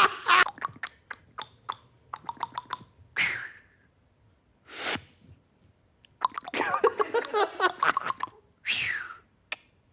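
A man making comic vocal sound effects with his mouth: a quick run of tongue clicks, then short breathy hisses, and a longer rasping, spluttering passage near the end.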